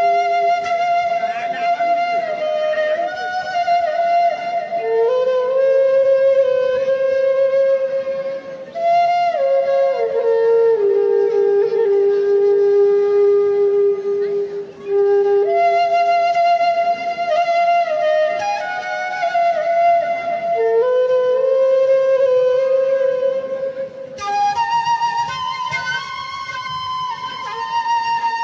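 Flute melody of slow, long-held notes that slide from one pitch to the next. The phrase starts over about halfway through, and the tune climbs higher near the end.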